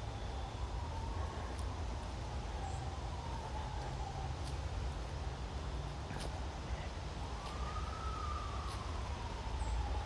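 A siren wailing, its single tone slowly rising and falling, with a long rise to its highest pitch about eight seconds in, over a steady low rumble of highway traffic.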